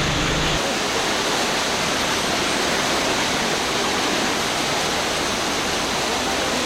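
Flash floodwater from heavy rain rushing down a city flood channel (sayla), a steady, loud rush of water.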